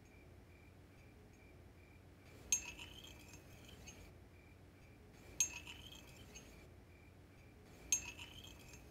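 Three sharp, glassy clinks, each ringing briefly, spaced about two and a half to three seconds apart. Under them runs a faint high tone pulsing in short repeated beeps.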